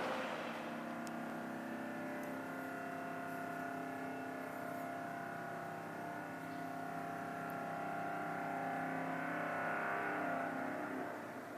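A steady droning hum made of several held tones sounding together, a little stronger about two-thirds of the way through and fading near the end.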